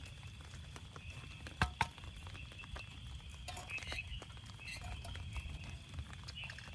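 Rain pattering on the tent, with two sharp knocks a little under two seconds in and the metal clink of a frying pan being set onto a gas canister camping stove's pot supports near the middle.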